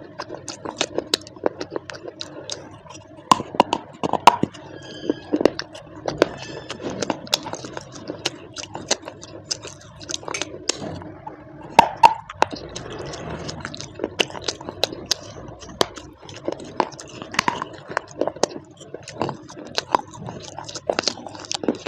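Close-up chewing and crunching of baked clay pieces: a dense, irregular run of sharp crunches.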